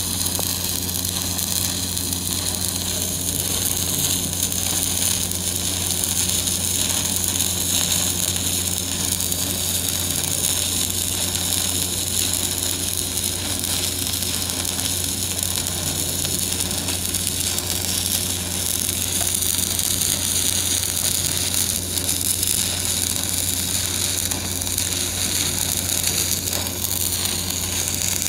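Electric arc welding a joint in the horizontal (2G) position: the arc runs steadily and without a break for the whole stretch, over a constant low hum.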